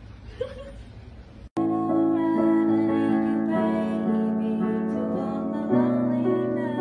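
Digital piano played in slow, held chords that change every second or two. It starts abruptly about a second and a half in, after faint room noise.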